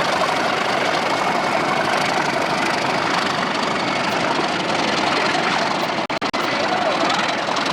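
A diesel locomotive's engine running steadily. The sound cuts out briefly twice about six seconds in.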